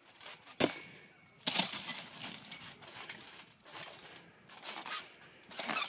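Trampoline being bounced on: the mat and its coil springs give a series of short thumps and creaks, one with each jump, with a sharp knock about half a second in.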